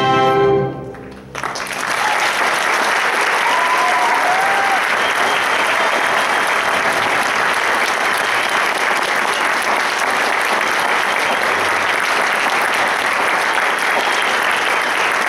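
A full orchestra's final held chord cuts off under a second in. After a short hush, an audience breaks into steady applause that carries on.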